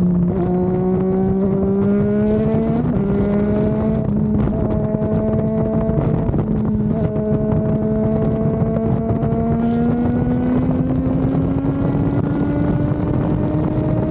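Triumph Daytona 660's three-cylinder engine pulling under load while riding, its revs climbing slowly and steadily, with short breaks in the pitch where it shifts gear, about three seconds in and again near the end. Wind rushes over the microphone.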